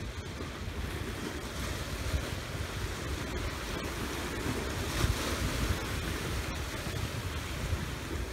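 Wind blowing across the microphone over a steady wash of river water, with a stronger gust about five seconds in.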